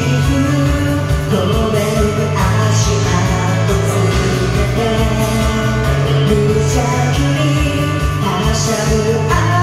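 A man singing a Japanese pop song along to a karaoke machine's band backing track with a steady beat, the key lowered four semitones from the original.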